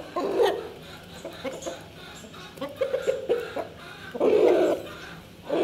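Fowl clucking while feeding: a quick run of short clucks about halfway through, then a louder, longer call near the end.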